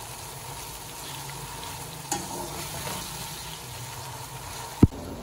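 Sliced onions sizzling in hot oil in an aluminium pot, stirred with a slotted metal spatula as they brown. A small click about two seconds in and a sharp knock near the end.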